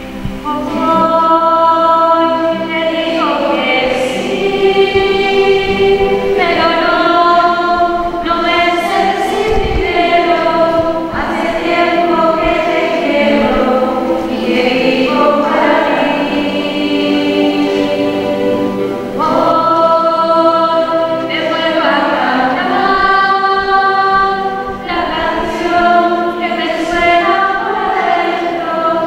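Choir singing a slow sacred song, long held notes that change pitch every second or two.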